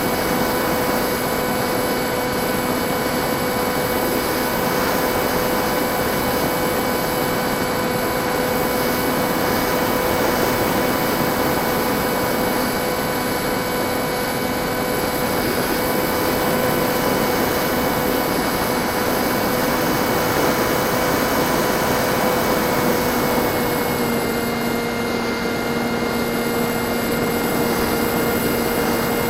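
Electric motor and propeller of a Bixler 1.1 RC plane, an NTM 2200kv brushless motor, running steadily in flight as a constant whine. Its pitch drops slightly near the end.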